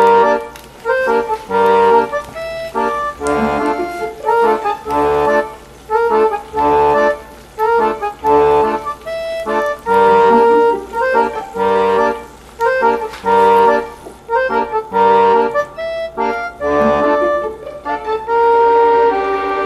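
Background instrumental music: a melodic tune over a low bass note that recurs at a regular interval.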